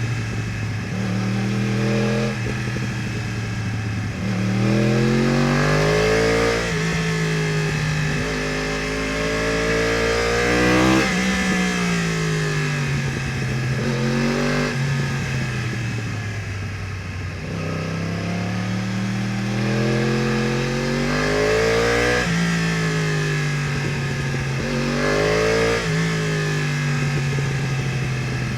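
2015 Yamaha R1's crossplane inline-four with Akrapovič headers and exhaust, accelerating and slowing again and again: the engine note climbs in several surges and then falls away on the overrun between them.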